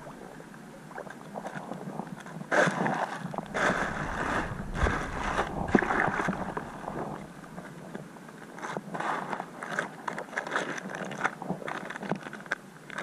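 Water sloshing and splashing around a swimmer pushing a floating plastic basin, with the crinkle of wet plastic rubbish being handled. Loudest between about two and a half and six seconds in.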